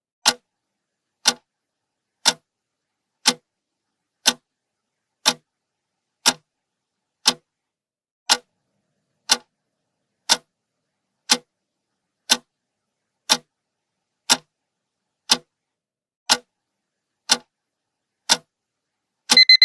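Clock ticking once a second with sharp, even ticks. Near the end a timer alarm starts beeping in quick high-pitched pulses, signalling that the minute is up.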